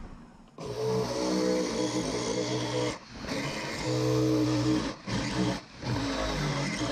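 Festool jigsaw cutting a curved round-over into the corner of a jarrah board, starting about half a second in. The cut pauses briefly about three seconds in and twice more near the end.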